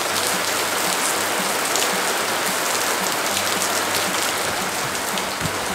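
Heavy rain falling steadily on a tiled courtyard and garden plants, an even hiss.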